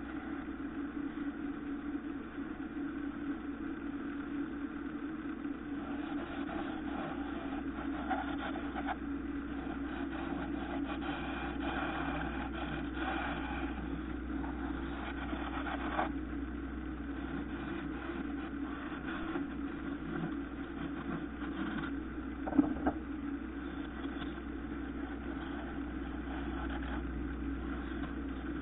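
Wood lathe motor running steadily while a turning gouge scrapes and cuts a spinning banksia nut (Banksia grandis), adding an uneven rasping over the hum. A single sharp knock about three-quarters of the way through is the loudest sound.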